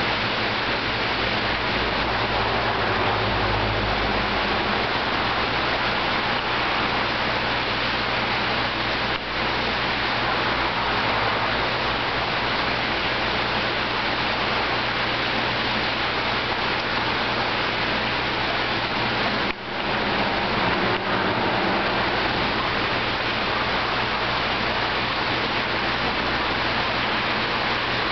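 Steady rush of water running into a fish holding tank, with a low steady hum underneath.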